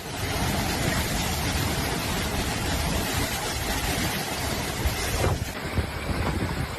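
Storm wind blowing hard on the microphone, a dense rushing noise that changes abruptly about five seconds in.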